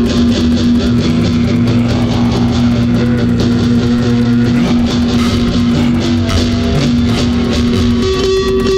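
Music: a strummed ukulele playing over a steady beat.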